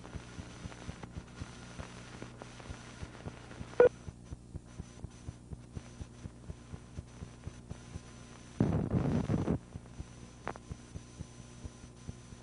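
Steady low hum with a quick, regular light ticking, the surface noise of a film soundtrack running out over blank leader. There is one sharp pop about four seconds in, and a rough burst of noise lasting about a second a little past eight seconds.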